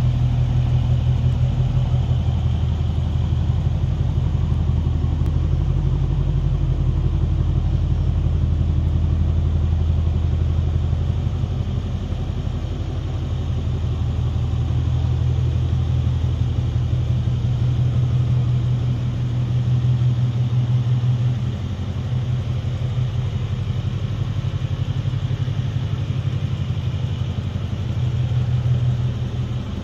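Mercedes-AMG C63's twin-turbo 4.0-litre V8 idling steadily, a deep, even rumble whose level dips a little about twelve and twenty-two seconds in.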